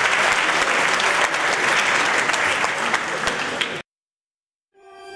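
Audience applauding, a dense patter of many hands clapping. It cuts off abruptly about four seconds in, and after a short silence a soft music with held tones begins to fade in near the end.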